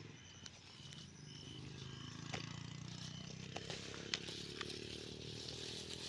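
Tall grass rustling and brushing with scattered light clicks as someone moves and handles things in it, over a low steady engine hum.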